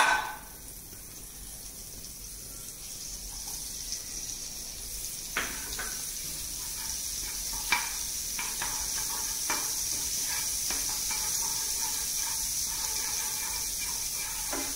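Butter melting and sizzling in a non-stick frying pan, the hiss growing steadily louder as the pan heats. There is a sharp knock at the start, then a spatula stirring and tapping lightly against the pan.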